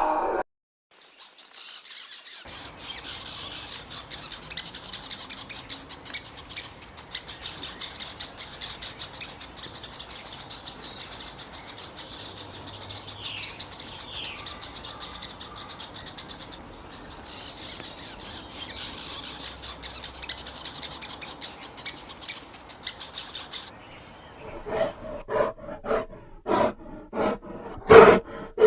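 Animal recording: a dense, high chirping with many fine clicks, then near the end a run of about six short, separate pitched calls.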